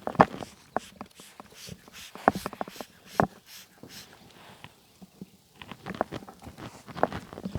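A horse moving about on its feet: irregular hoof knocks and scuffs, a few of them sharp.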